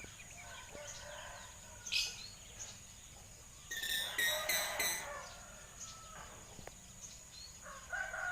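Hill myna calling: a sharp call about two seconds in, a louder cluster of three or four harsh notes around four to five seconds, and another call near the end.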